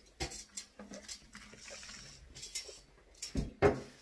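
Light clatter and rustling of food containers and a drink cup being handled on a table, with a louder knock about three and a half seconds in.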